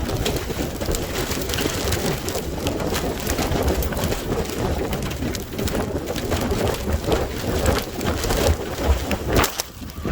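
Heavy rain pelting down in a severe thunderstorm, with gusting wind rumbling on the microphone and many sharp drop impacts.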